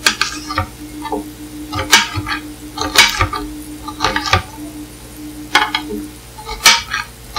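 Kitchen knife cutting an onion into large pieces, the blade knocking down through it about a dozen times at an uneven pace.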